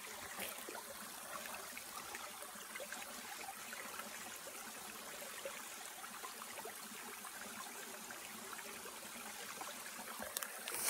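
Small woodland creek flowing over rocks: a faint, steady trickle of running water.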